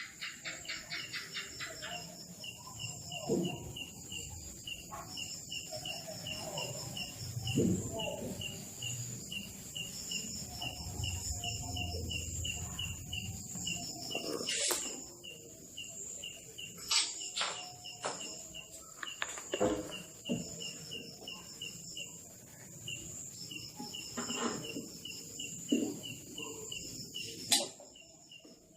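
Insects, crickets by their sound, chirping steadily in a regular pulse of a few chirps a second over a steady high whine. A handful of sharp clicks and knocks and some dull thuds from hand work on the scooter come through now and then.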